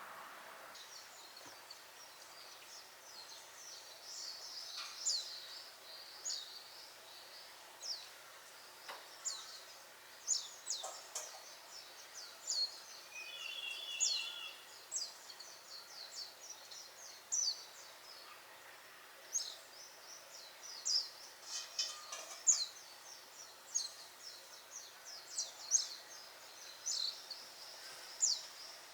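Small birds chirping: many short, high, falling chirps repeated irregularly, with a brief lower trill about halfway through, over faint steady background hiss.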